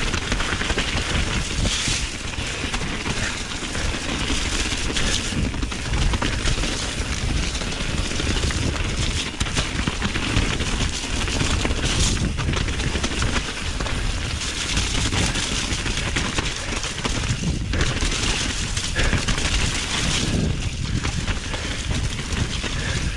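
Wind buffeting the microphone, with a dense crackling rattle mixed in.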